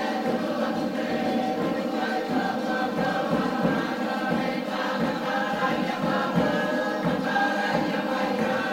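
Mixed group of many voices singing together in a chant-like choral style, holding long steady notes.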